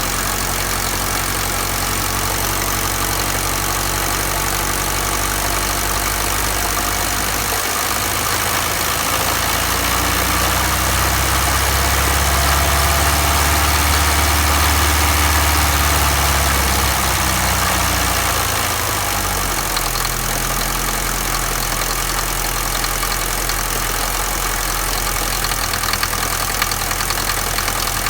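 Mercedes-Benz W124 200D four-cylinder diesel engine idling with a knock. It is revved up about eight seconds in, held for several seconds, then settles back to idle. The owner says the knock stops when the engine is accelerated and does not know its cause.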